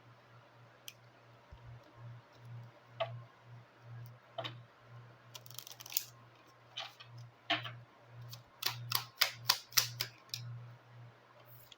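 A Cigano (Lenormand) card deck being shuffled and handled: scattered crisp card snaps and clicks that quicken into a rapid run about nine seconds in, over a faint low hum.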